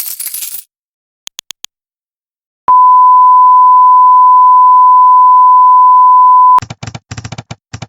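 Electronic beep: one steady, loud 1 kHz tone held for about four seconds. Before it come a short burst of hiss and four quick clicks; right after it cuts off, a rapid, uneven run of clicks follows.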